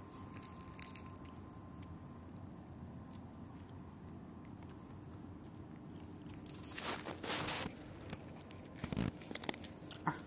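A dog crunching and chewing biscuits, with a louder burst of noise about seven seconds in and a few sharp clicks near the end.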